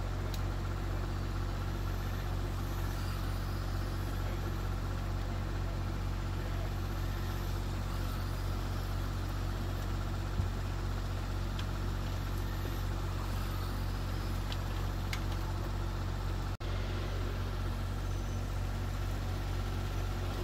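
A small engine idling steadily, a low even drone that neither rises nor falls, with one short click about halfway through.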